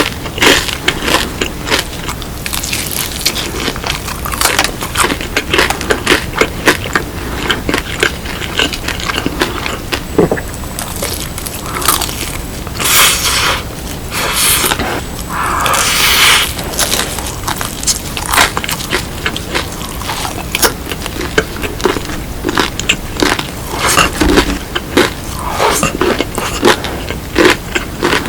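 Close-miked crunching and chewing of cheese-powder-coated fried chicken (BHC Bburinkle): many sharp, crisp crackles from the fried crust, with a few longer crunchy bites about halfway through.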